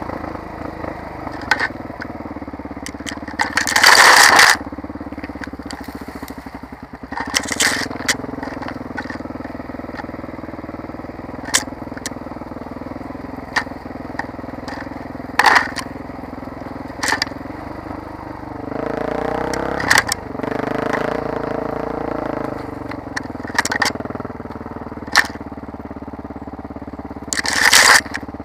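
Enduro motorcycle engine running steadily on a dirt forest trail, its revs climbing briefly about twenty seconds in. Brush and branches scrape and crackle against the bike again and again, loudest about four seconds in and near the end.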